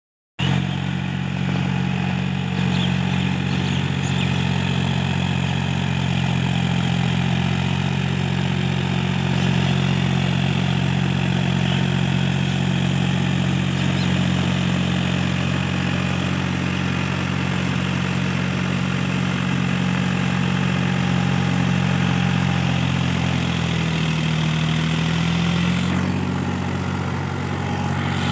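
Powertrac Euro 45 tractor's diesel engine running steadily under load while it drives a rotavator through a flooded paddy field. Its note sags briefly and recovers near the end.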